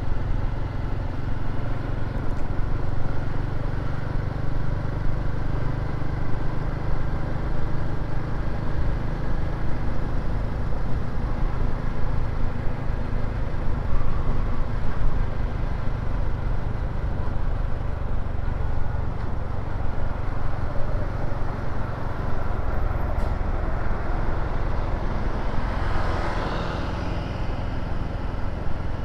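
Motor scooter on the move in city traffic: a steady low rumble of engine, road and air noise. Near the end a brief louder rush swells and fades.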